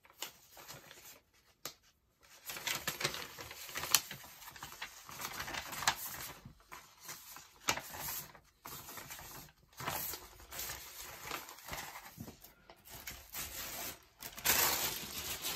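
Paper and plastic packaging handled and unwrapped by hand, rustling and crinkling in irregular bursts with small clicks, louder near the end.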